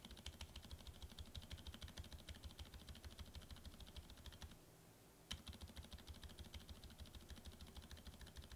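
Fast, quiet typing on a mechanical keyboard fitted with Boba U4 silent tactile switches on an aluminium plate with ABS keycaps, giving muted keystrokes. The typing breaks off briefly about four and a half seconds in, then resumes with one sharper clack.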